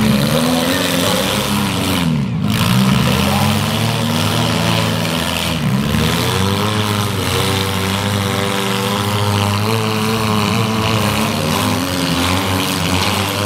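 Several demolition derby cars' engines revving hard together, their pitch rising and falling again and again.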